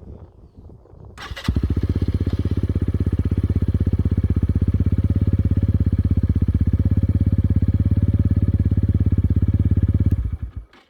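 Exhaust note of a KSR TW 125 supermoto's 125cc single-cylinder engine through an Arrow exhaust with the dB-killer removed, held at a steady speed for a stationary-noise test. It is a deep, evenly pulsing rumble that comes in about a second and a half in and drops away sharply near the end. It reads about 83 dB at 25 cm, louder and more rumbling than with the dB-killer fitted.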